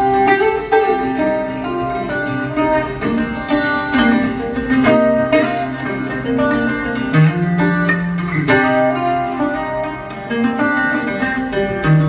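Solo acoustic guitar played live: a quick, steady stream of plucked notes over lower bass notes, one bass note held for about a second past the middle.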